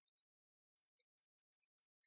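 Near silence, broken only by faint, scattered, very short high-pitched ticks.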